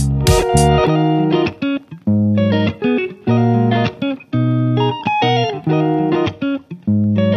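Background music led by guitar, plucked notes played in short phrases.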